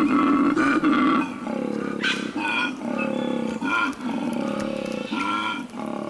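Male koala bellowing in the mating season: a deep, continuous snoring rumble that breaks off about a second in, then a run of about five shorter moaning notes. The call advertises him to females and warns rival males off his patch.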